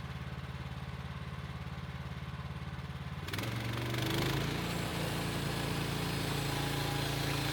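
Gas engine of a Woodland Mills bandsaw sawmill idling steadily. About three seconds in, it speeds up and runs louder, with a hiss joining in.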